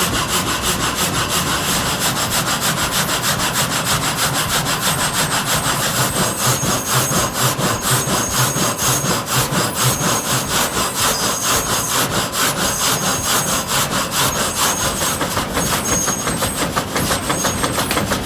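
A saw cutting through wood with a steady, rapidly repeating rasp, stroke after stroke.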